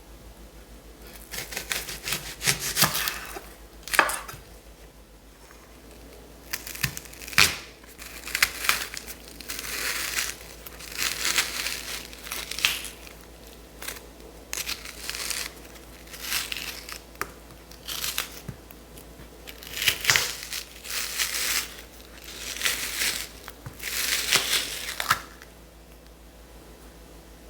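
Dry, papery vegetable skin being peeled and torn off by hand in repeated crackly bursts, with a few sharp knocks about 4 and 7 seconds in.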